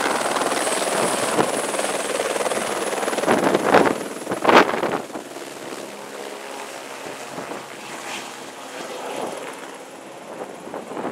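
Helicopter flying low overhead, its rotor noise loud and rushing for the first few seconds and peaking in two short surges around four and four and a half seconds in, then dropping to a quieter, steady rush as it moves away.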